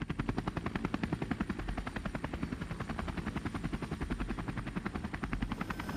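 Helicopter rotor blades beating in a rapid, even rhythm over a low, steady drone.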